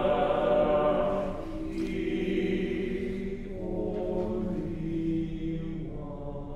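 A small choir of men's voices singing unaccompanied chant, holding long notes that move every second or so.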